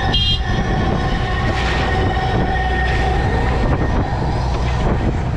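Crab boat's engine and hydraulic machinery running: a steady low rumble with a high, steady whine, and a short rattle right at the start.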